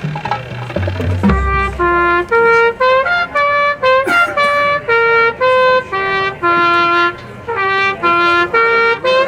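Marching band brass playing: low brass chords and a deep bass note, then a trumpet melody of short, separated held notes.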